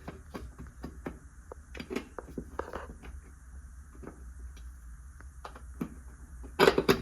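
Metal access panel of an electric water heater being fitted back over the thermostat: scattered clicks, scrapes and light knocks, with a louder clatter near the end.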